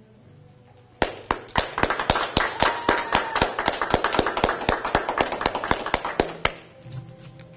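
A small group clapping, the separate claps distinct, starting about a second in and stopping a little over five seconds later.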